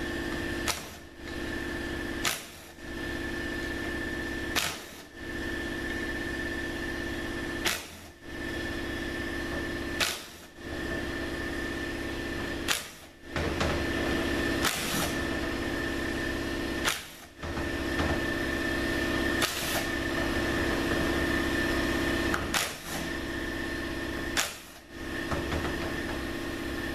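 A small electric motor, likely a power tool backing out the transmission pump bolts, runs with a steady hum. About every two to three seconds it is broken by a sharp click and a brief drop-out, then resumes.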